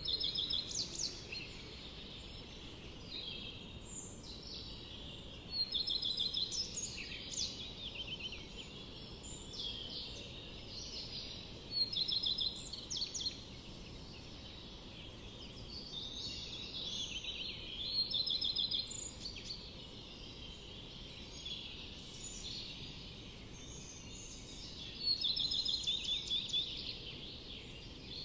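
Forest birds singing: short phrases of quick high notes and trills come every few seconds, sometimes overlapping, over a steady low background hiss.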